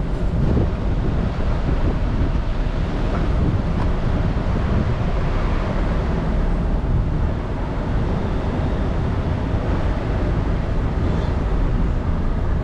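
Steady wind buffeting the microphone, a rumbling rush of noise.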